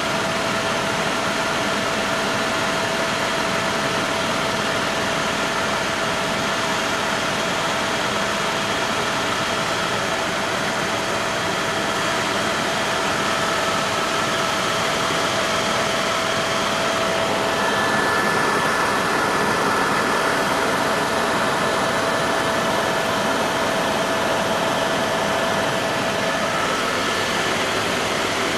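Helicopter cabin noise in flight: a steady rush of engine, rotor and air, with a few faint steady whining tones held through it.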